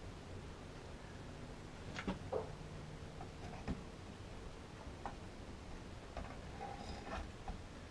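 A few scattered light clicks and knocks as the parts of an outboard motor's steering bracket are handled and fitted back together during reassembly.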